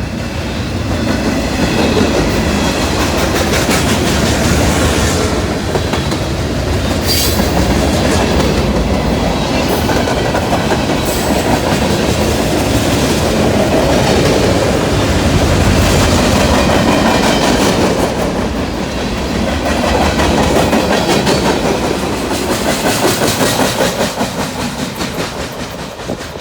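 Norfolk Southern freight train rolling past at speed, a steady loud rumble with wheels clicking rhythmically over the rail joints.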